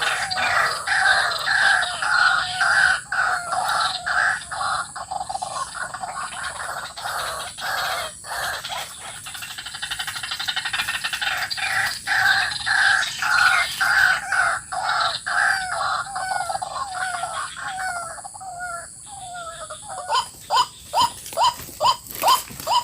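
White-breasted waterhen calling: a long run of repeated croaking 'ruak' notes, changing near the end to sharper, more separate notes.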